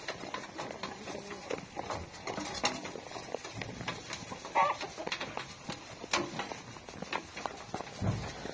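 Sheep eating loose grain from a metal trough: a steady patter of crunching and clicking as they chew and nose through the grain. A short animal call sounds about halfway through.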